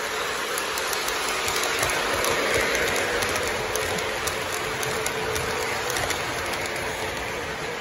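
Lionel Legacy Southern 4501 Mikado O-gauge model steam locomotive and its passenger cars running past on the track: a steady rolling rumble with a hum, and light clicking as the wheels cross the rail joints. It is loudest as the locomotive goes by, about two to three seconds in.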